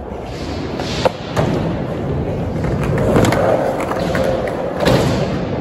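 Skateboard rolling over a concrete floor: a continuous rolling rumble from the wheels, with a couple of sharp knocks about a second in and another near the end.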